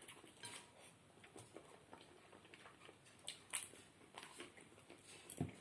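Faint eating sounds: quiet chewing with scattered light clicks of cutlery against a plate, a couple of slightly louder clinks a little past the middle.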